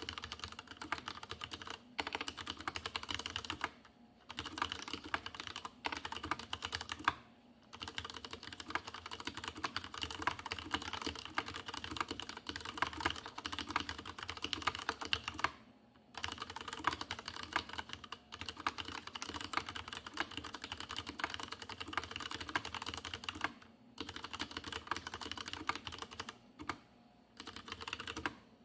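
Fast continuous typing on a Leopold FC750R PS mechanical keyboard with unlubricated Cherry MX Red linear switches, a dense patter of keystrokes broken by a few brief pauses.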